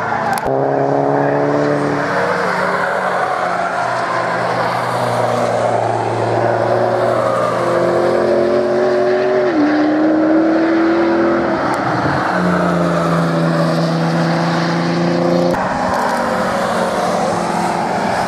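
Cars being driven hard on a race circuit: engines pulling under acceleration with the pitch climbing and stepping down at gearchanges, the sound changing abruptly a couple of times as one passing car gives way to the next.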